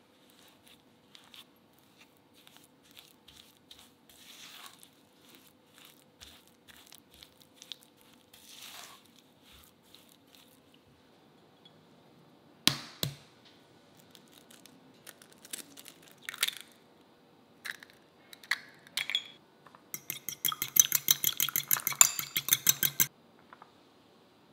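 A silicone spatula scrapes and mixes cream cheese, sugar and sour cream in a glass bowl with soft, scattered scraping. About halfway through, an egg is cracked against a small glass bowl with two sharp knocks. Near the end the egg is beaten in that glass bowl: a quick run of rapid clinks lasting about three seconds.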